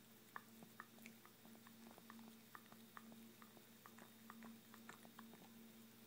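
Near silence with faint, irregular small clicks and smacks close to the microphone, a few each second, over a faint steady hum.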